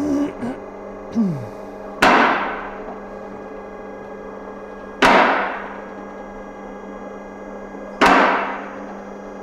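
Sharp metallic strikes about every three seconds, three in all, each ringing on and fading over about a second.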